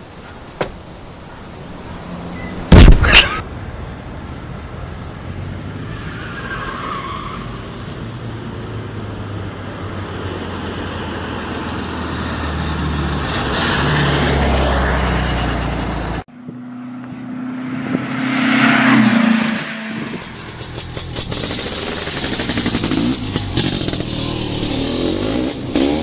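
Classic VW Beetle driving hard, its engine noise swelling for several seconds before cutting off abruptly, then building again. There is a loud bang about three seconds in and music near the end.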